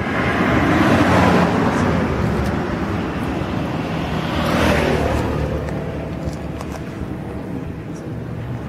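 Motor vehicle and road noise: an engine running with tyre rumble, swelling about a second in and again about four and a half seconds in as a vehicle passes, then slowly fading.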